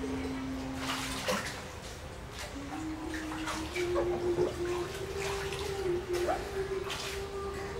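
Water splashing and sloshing in a small inflatable paddling pool as a child moves about and ducks under, in several irregular splashes.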